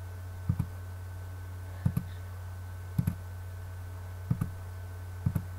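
Computer mouse clicking five times, about a second apart, each click a quick double tick. A steady low electrical hum runs underneath.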